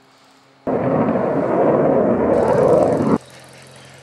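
Jet fighter's engine noise, a loud rushing roar that starts suddenly and cuts off just as suddenly about two and a half seconds later.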